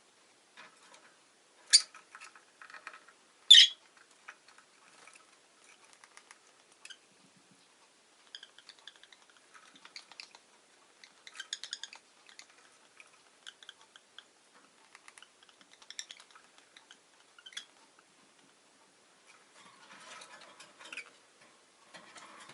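Rosy-faced lovebirds making small scratchy clicks and rustles, the sort of sound of beaks and feet working at a cage or perch. Two short, sharp, loud sounds stand out, about two and three and a half seconds in.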